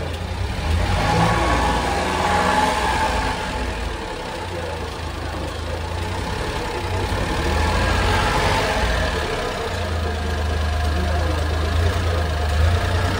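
Small engine idling steadily with a constant low hum, and a higher whir that swells and fades twice. The engine is the 1997 Honda Acty's 656 cc three-cylinder.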